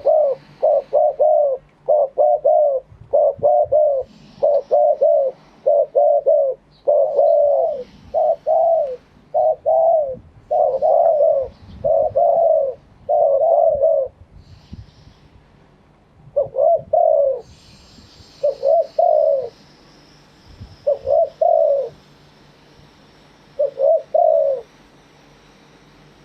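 Spotted dove cooing: a run of quick, closely spaced coo phrases for about fourteen seconds, then, after a short pause, slower separate phrases every two to three seconds.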